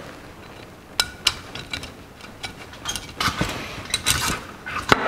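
Light metal clicks and scrapes as throttle shafts with their linkages are slid back into the throttle plate of a Rochester 4-jet carburetor. Two sharp clicks come about a second in, then a busier run of clicks and rattles from about three seconds, the loudest near the end.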